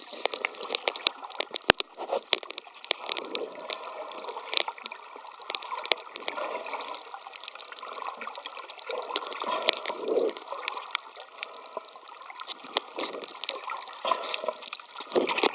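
Underwater sound as picked up by a camera below the surface: water moving and gurgling around the microphone, with many scattered sharp clicks and crackles.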